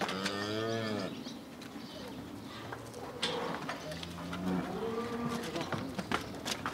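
Cows mooing: one call about a second long at the start, and a second call from about four seconds in, with a few sharp knocks between and near the end.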